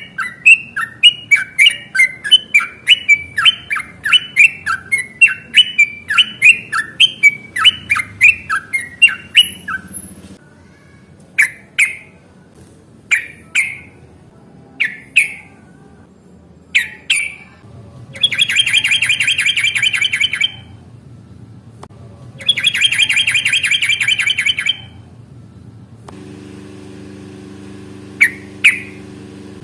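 Yellow-vented bulbul (trucukan) calling: a fast run of short, sharp calls at about two a second for some ten seconds, then single calls about a second and a half apart, then two dense rattling bursts of about two seconds each. Near the end a low steady hum comes in under two more calls.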